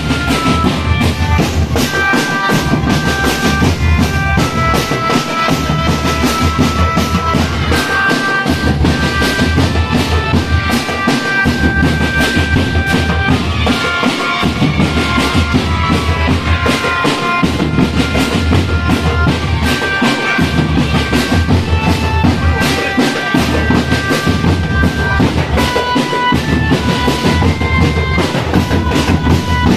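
Marching drum band playing: snare and bass drums beating a steady marching rhythm under a melody of held, reedy notes.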